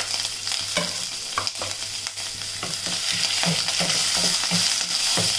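Sliced onions and green chillies sizzling in hot oil in a stainless steel kadai, with a steady hiss, while a wooden spatula stirs them, scraping and knocking against the pan in a series of short strokes.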